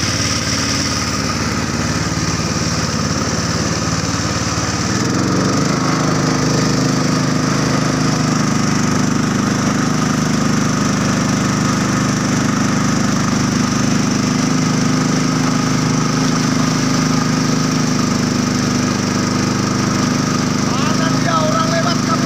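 Motorboat engine running steadily, picking up and getting a little louder about five seconds in, then holding an even pitch.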